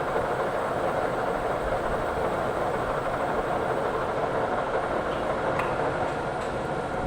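Metal lathe running steadily, an even mechanical whir, with a couple of faint ticks about five seconds in.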